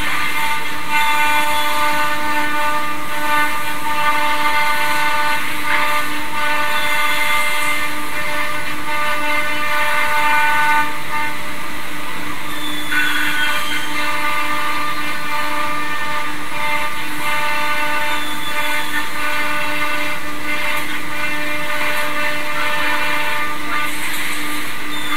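CNC router with a 9.6 kW air-cooled HSD spindle routing contours in a particleboard panel: a loud, steady spindle whine with cutting noise. The tone of the cut shifts a little about halfway through.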